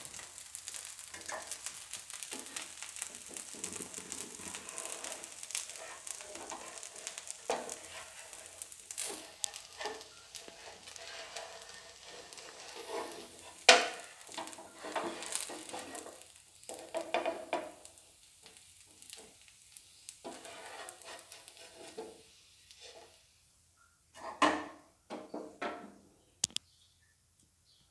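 A poha dosa sizzling on a hot tawa, a steady hiss that fades over the first dozen seconds. About halfway through, a wooden spatula scrapes under the crisp dosa to lift it off the pan, followed by a few short knocks near the end.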